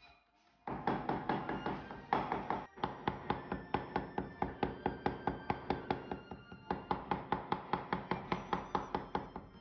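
A cleaver chopping fast and evenly on a cutting board, about five strokes a second, mincing dumpling filling.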